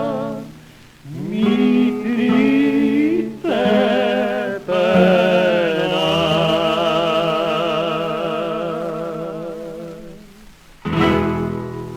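Closing bars of an Argentine ranchera song in an old recording: held notes with a strong vibrato over guitar accompaniment, ending with a final chord struck about eleven seconds in.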